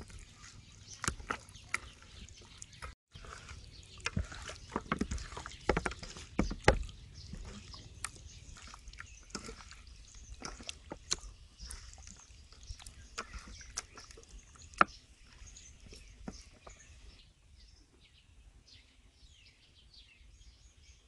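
Hands squishing and slapping raw chicken drumsticks through a wet marinade in a metal bowl: irregular squelches and clicks, dying away near the end.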